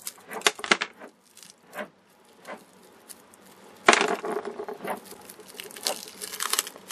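Small clicks and taps from the broken pieces of a capacitor being handled. About four seconds in, a crinkling rustle starts as the clear plastic film and foil of the wound plastic-film capacitor are peeled off its core.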